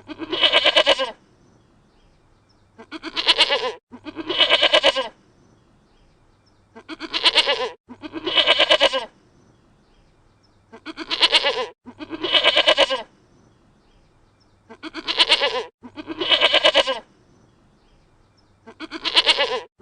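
Dutch goat bleating in pairs of loud, wavering calls, each about a second long, with a pair coming about every four seconds.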